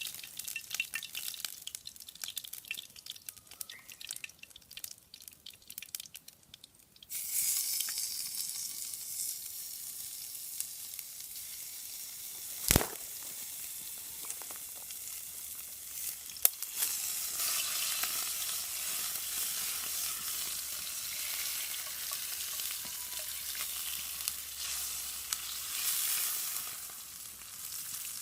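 Food frying in a hot cast-iron skillet: the sizzle starts suddenly about seven seconds in, after a stretch of faint scattered clicks, and then runs on steadily. A single sharp knock about halfway through.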